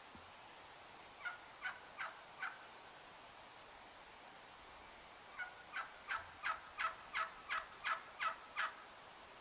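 Wild turkey yelping: a short run of four yelps, then after a pause a longer run of about ten, roughly three a second.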